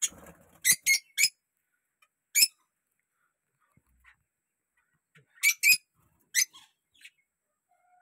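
Peach-faced lovebirds giving short, shrill chirps, some single and some in quick pairs or threes, with quiet gaps of a second or more between them.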